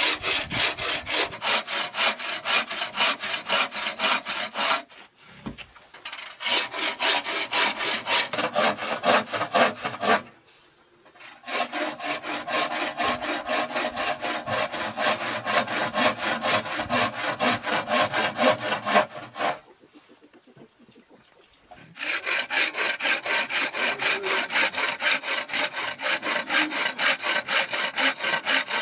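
Hacksaw cutting through a fresh green bamboo pipe: rapid, even back-and-forth strokes, several a second, with the sawing stopping briefly three times.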